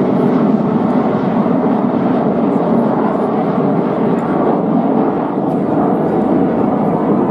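Dassault-Dornier Alpha Jet's twin Larzac turbofans, a steady loud jet noise as the aircraft manoeuvres overhead.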